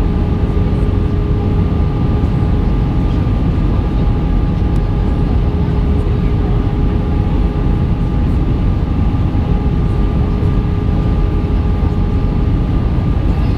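Steady in-flight cabin noise of an easyJet Airbus A319: a loud, even rush of airflow and engine noise with a few steady tones held over it.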